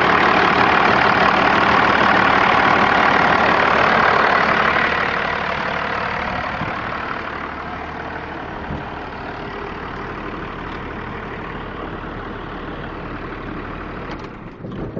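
1989 Dodge Ram D250's engine running on its first start during restoration. It runs loud at first, drops after about five seconds to a quieter steady idle, and is shut off just before the end.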